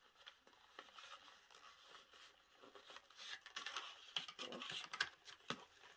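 Cardboard box being handled and a metal drinking straw worked out of its packaging: faint rustling and scraping with a few light clicks, busier from about three seconds in.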